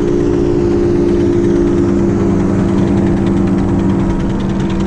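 Small boat outboard motor running steadily at low speed, with an even, unchanging hum.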